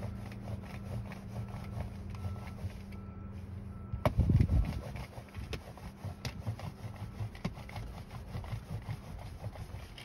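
Sticky lint roller rolled back and forth over pet-hair-covered car carpet, its adhesive sheet crackling in quick, irregular ticks. A louder knock comes about four seconds in.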